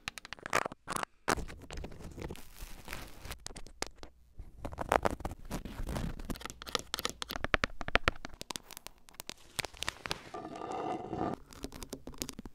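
A rapid series of close-miked ASMR triggers: long fingernails tapping and scratching on a quick succession of different surfaces, including a window frame, a plush toy and a crystal cluster, the sound changing every second or so. A short pitched sound comes about ten seconds in.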